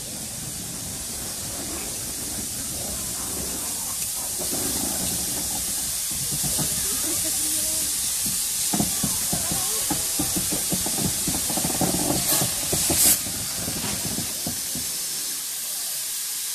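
GWR 5700-class pannier tank locomotive No. 4612 approaching slowly under a steady steam hiss that grows louder as it nears, its wheels and motion knocking and clanking, with a brief sharper burst of steam about three-quarters of the way through. The rumble dies away near the end as it comes to a stand, leaving the hiss.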